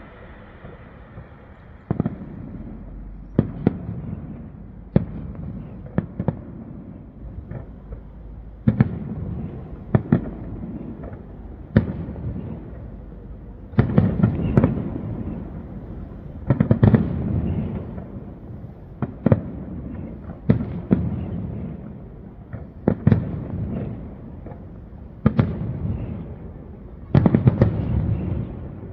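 Fireworks display: aerial shells bursting in an irregular string of bangs every second or two, each trailing off in a rumbling echo, with clusters of several bangs close together now and then.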